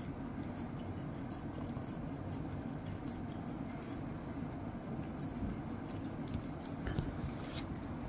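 Cat chewing and nibbling at cooked corn on the cob: a run of small quick clicks, about three a second.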